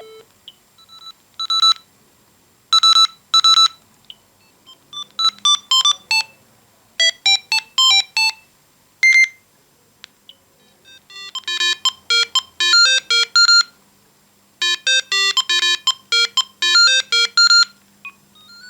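Siemens Gigaset A120 cordless phone playing its built-in ringtones one after another. Each is a short, buzzy electronic beep melody with a pause between tunes, and the last ones are faster and busier.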